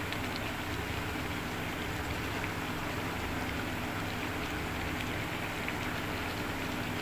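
Chicken butter masala sizzling and bubbling in a hot pan: a steady hiss with scattered small pops, over a steady low hum.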